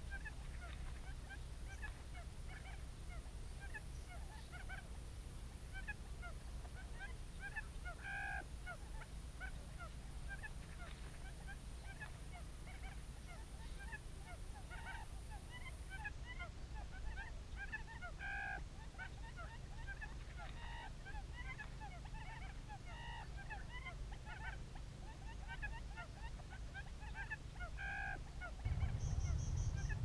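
Quail call played through a speaker as a trap lure: a short call with a few stacked pitches, repeated every two to three seconds, over a dense background of faint chirps. A low rumble grows louder near the end.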